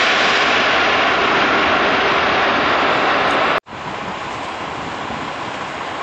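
Loud, steady jet-engine noise from a nearby Boeing 747-8's four engines. About three and a half seconds in it cuts off sharply to a quieter, steady outdoor rumble.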